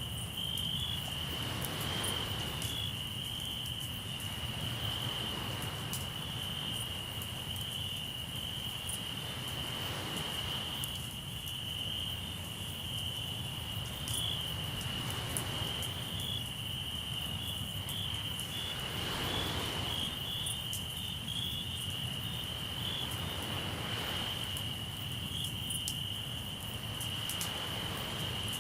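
Crickets chirping in a steady, continuous high trill. Under them, sea waves wash in every four to five seconds, and a campfire crackles with scattered sharp pops.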